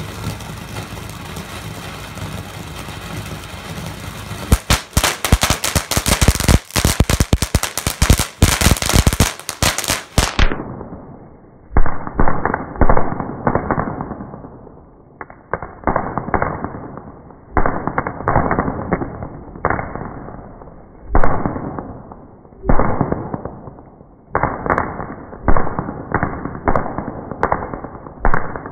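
Fireworks going off: a few seconds of steady background noise, then a rapid string of sharp cracks like a firecracker string, then a run of separate bangs every second or two, each trailing off in a fading crackle.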